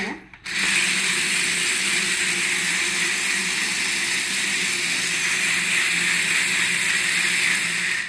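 Small electric motors and gearboxes of a double-sided RC stunt car whirring steadily as it drives and spins on a marble floor, with a brief break just after the start.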